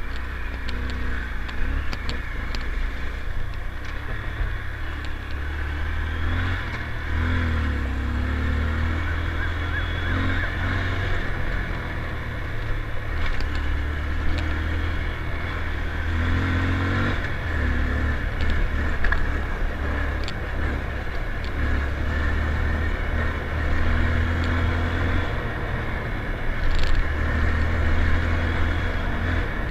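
Motorcycle engine running as the bike is ridden, its pitch rising and falling as the throttle opens and eases off, with a few sharp clicks along the way.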